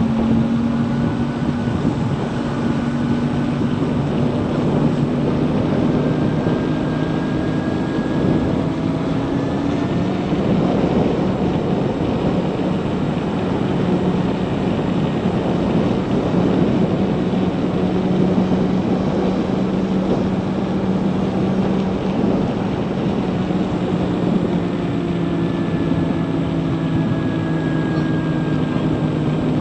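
Zero DSR electric motorcycle on the move: a steady rush of wind and tyre noise with a motor whine that drifts slowly up and down in pitch as road speed changes.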